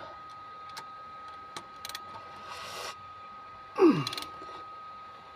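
Cylinder head bolts being worked loose with a wrench: a few light clicks and a short rasp, then a short falling groan about four seconds in.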